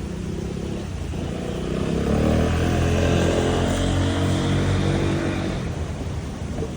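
A motor vehicle passing on the street outside, its engine and tyre noise swelling to a peak about three seconds in and fading away over the next couple of seconds.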